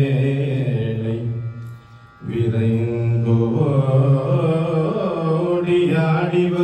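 A man singing a Tamil devotional song in Carnatic style through a microphone, holding long notes that glide between pitches. The voice breaks off briefly about two seconds in, then carries on.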